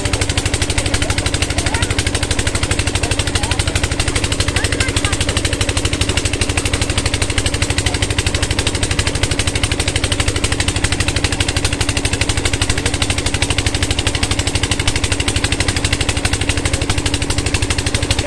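Engine driving a tubewell pump, running at a fast, even knocking beat, over the rush of water gushing from the outlet pipe into the concrete tank.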